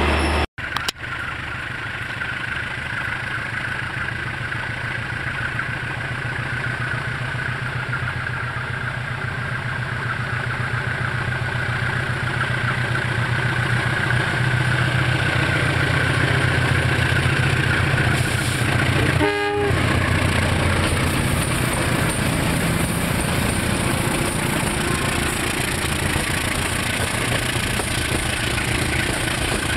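Diesel locomotive of an approaching passenger train running under power: a steady low engine drone that slowly grows louder as it nears and passes close by, with rolling noise from the train on the rails. A short horn note sounds about two-thirds of the way through.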